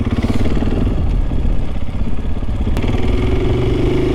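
Motorcycle engine running as the bike moves off, a rapid even pulse with a steadier, higher tone coming in about three seconds in.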